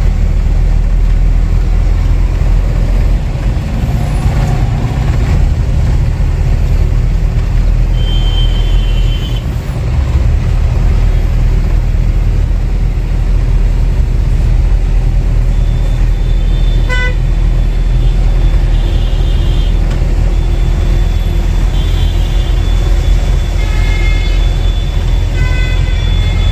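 Truck engine and road noise heard from inside the cab as it drives: a steady, heavy low rumble. Vehicle horns toot briefly about eight seconds in, then repeatedly through the second half.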